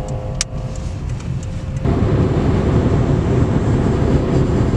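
Car cabin road noise: a steady low hum with one sharp click, then about two seconds in a louder, even rumble and rush of tyres and wind at highway speed cuts in abruptly.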